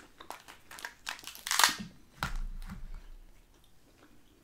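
Snow crab legs being cracked and snapped apart by hand, without scissors: a run of crackling shell snaps. The loudest crack comes about a second and a half in, with another just after, then smaller ticks as the shell pieces are picked at.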